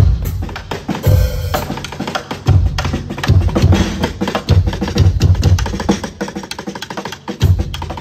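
Semi-electronic drum kit, acoustic drums and cymbals with a Yamaha DTX electronic pad unit, played in a busy groove: heavy kick-drum beats about once a second under rapid snare, tom and cymbal strokes.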